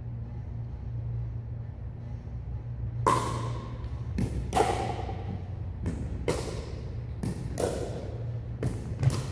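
Pickleball rally: about nine sharp knocks of paddles striking the plastic ball and the ball bouncing on the hardwood gym floor, starting about three seconds in and echoing in the hall. A steady low hum runs underneath.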